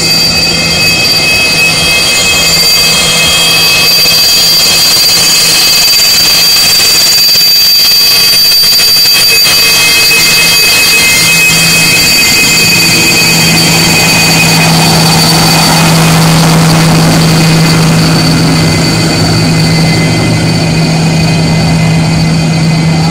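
Twin AL-31F jet engines of a taxiing Sukhoi Su-27 fighter at taxi power: loud, steady jet noise with a high-pitched turbine whine. A low hum grows stronger about halfway through.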